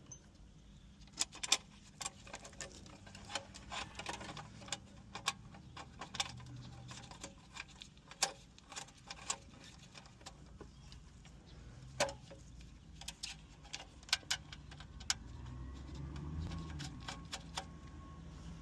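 Irregular small clicks and metallic taps from handling a car radio head unit and its metal mounting bracket and bolts, with a faint low hum beneath.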